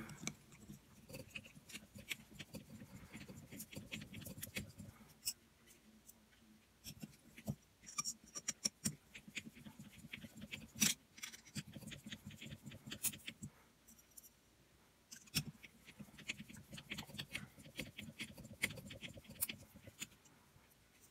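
Small screws being driven into a gear differential's case with a hex driver: faint, irregular clicks and scrapes of the tool in the screw heads.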